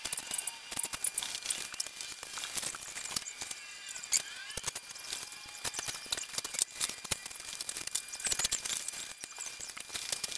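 Foam pipe insulation being handled and pushed onto PVC pipe rails by hand: scattered rustles, scrapes and clicks, with a few short squeaks about four seconds in.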